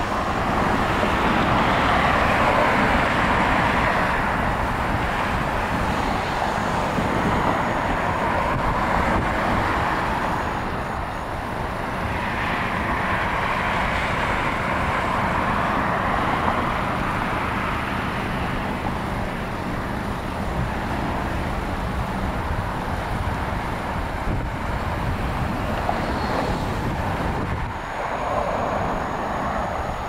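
Road traffic at an intersection: cars passing with a steady noise of tyres and engines that swells louder as vehicles go by, several times.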